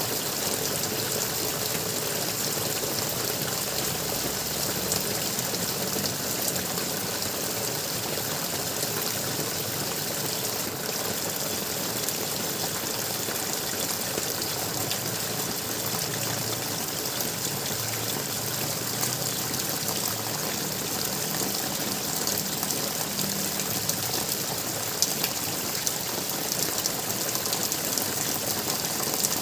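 Water gurgling steadily, an even, continuous rush of flowing water.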